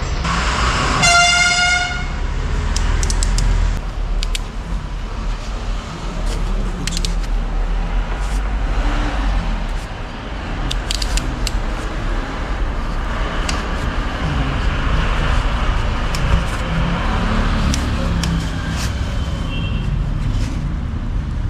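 A vehicle horn toots once, briefly, about a second in, over a steady low workshop rumble with scattered short clicks and taps.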